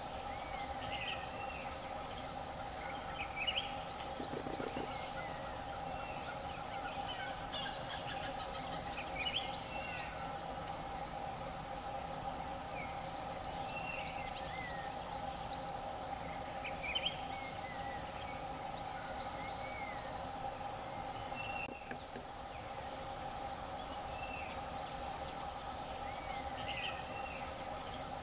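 Forest ambience: a steady insect drone with short chirping bird calls every few seconds.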